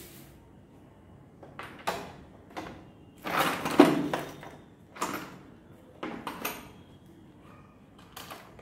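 Parts of a drill kit being handled: a series of separate knocks, clicks and scrapes, the longest and loudest a scraping stretch about three to four seconds in.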